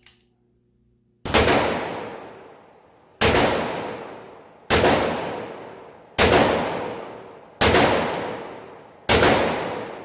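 Six shots from a Taurus 627 Tracker revolver, fired one at a time about one and a half seconds apart, each ringing out with a long echo.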